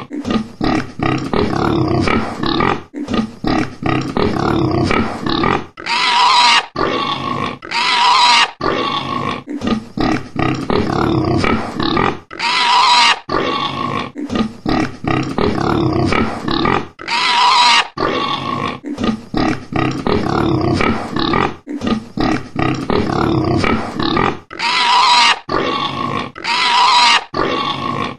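Domestic pigs grunting steadily, broken about six times by short, loud squeals.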